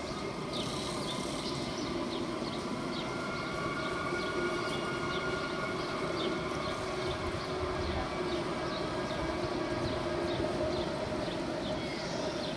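Red double-deck Regional Express train at the platform, its equipment giving a steady hum with several held tones over the echoing noise of the station hall. A light ticking repeats about twice a second.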